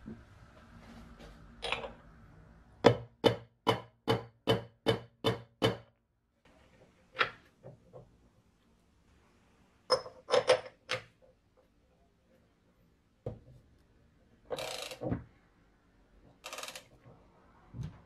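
Metal clicks and clinks of hand tools and parts as the flywheel, starter cup and nut go back onto a Subaru mower engine's crankshaft: a run of about eight sharp, evenly spaced clicks, a cluster of clinks about ten seconds in, then short rasping bursts of a ratchet wrench near the end.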